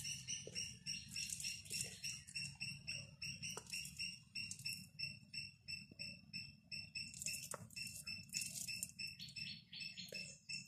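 A steady series of short, high chirps, about three a second, from a bird. In the first couple of seconds and again about seven and a half seconds in, there are bursts of soft crackly noise from rice being squished and mixed by hand.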